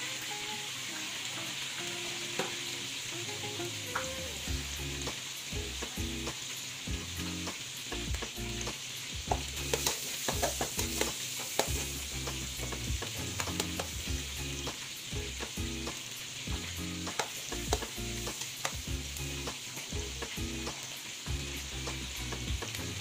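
Carrot slices and garlic frying in melted butter in an aluminium pan: a steady sizzle, with the clicks and scrapes of stirring, busiest about halfway through.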